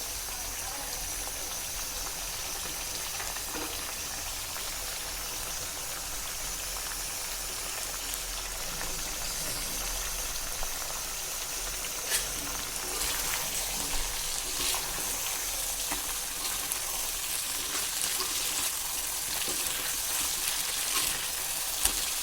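Chicken leg pieces frying in a pan with a little water, a steady sizzle that grows slightly louder about halfway through, with a few light knocks.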